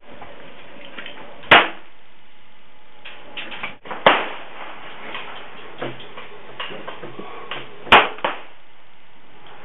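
Pistol shots on a slow-fire firing line, fired one-handed from Beretta M9 and 1911 match pistols: three loud shots two to four seconds apart, with a few fainter shots from neighbouring points on the line in between.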